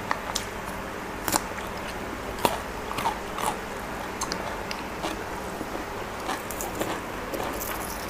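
A person chewing raw garlic close to the mouth: irregular crisp crunches and small clicks as the clove is bitten and chewed.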